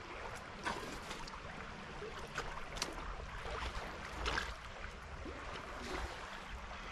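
Stream water running steadily, with a low rumble, and a few short sharp clicks or knocks scattered through it.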